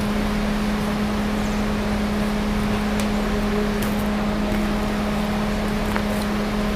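Steady mechanical hum with a constant low drone and a fainter higher tone above it, with a few faint ticks.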